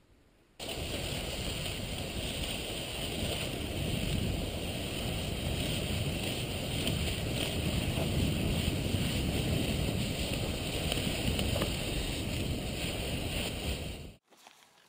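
Steady rushing noise of a cross-country skier gliding along groomed classic tracks, recorded on a body-worn camera: wind on the microphone mixed with the skis running in the tracks. It starts abruptly about half a second in and cuts off sharply near the end.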